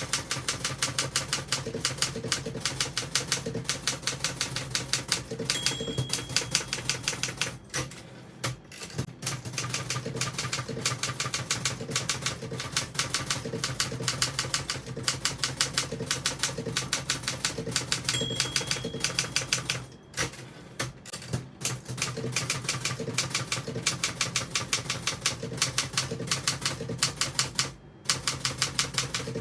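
1977 Olympia SG3 manual typewriter being typed on at a steady, fast pace, the keys striking in an even run of clicks with a few brief pauses. A short high ding sounds twice, about six seconds in and again near eighteen seconds: the margin bell warning of the line's end.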